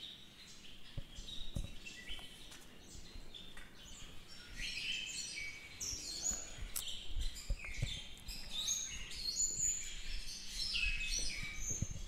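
Small songbirds chirping and singing over one another in short, high notes and trills, growing busier and louder from about halfway through.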